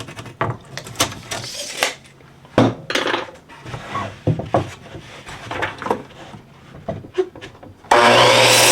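Cedar fence picket and tools handled, with scattered knocks and clicks. Near the end a power saw starts suddenly and runs loudly to cut the board to length.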